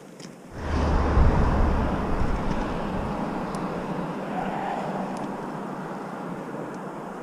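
Wind rushing over the microphone of a bike-mounted camera while riding. It starts suddenly about half a second in with a deep rumble, is loudest for the next second or two, then eases off gradually.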